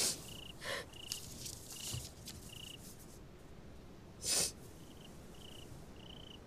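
A cricket chirping steadily, one short high chirp about every three-quarters of a second, with a brief pause in the middle. A few short breathy sniffs cut across it, the loudest about four seconds in.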